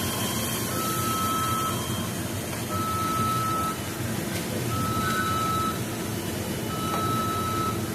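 McDonald's kitchen equipment alarm beeping: one-second electronic beeps, one every two seconds, with fainter higher alarm tones over a steady kitchen hum.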